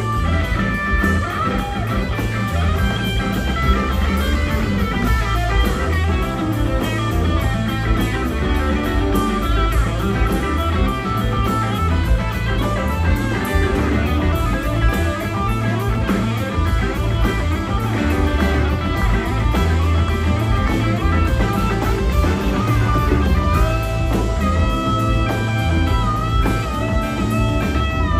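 Live rock band playing: several electric guitars trading melodic lead lines over bass guitar and drums.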